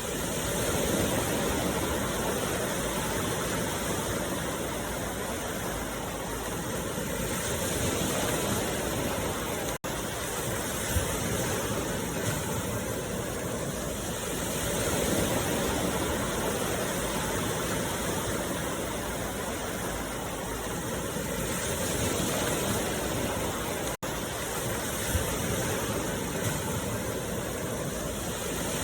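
Steady rushing noise, like running water, that swells and eases slowly every several seconds. It cuts out for an instant twice.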